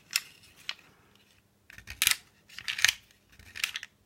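Old lever door lock being handled: a series of about five short, crisp metallic clicks and scrapes, the loudest around two to three seconds in.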